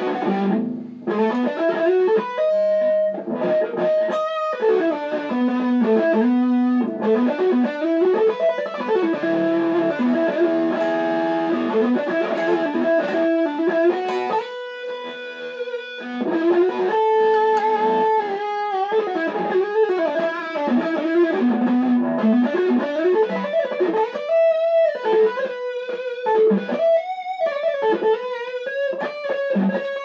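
Kiesel K-series electric guitar with Lithium pickups played through an amp, running melodic single-note lines and chords. The playing drops softer for a moment about halfway through.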